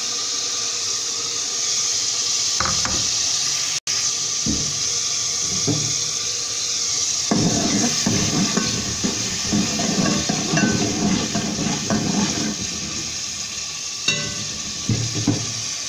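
Tomato and garlic sizzling in hot oil and water in a cooking pot, with a metal spoon stirring and scraping against the pot. Scattered knocks at first, then a dense run of clattering strokes in the middle, and a few more knocks near the end.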